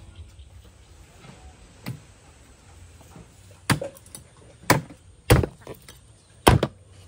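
Meat cleaver chopping through a whole raw chicken on a round wooden chopping block: a lighter knock first, then four heavy chops roughly a second apart in the second half.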